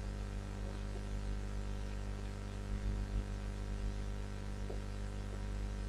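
Steady electrical hum with a low hiss beneath it: the recording's background noise, with no speech.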